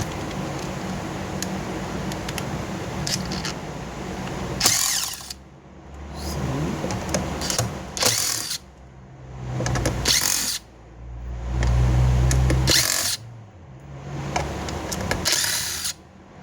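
Power drill-driver running in four or five short bursts, each a second or two long and separated by brief pauses, backing screws out of a car amplifier's case.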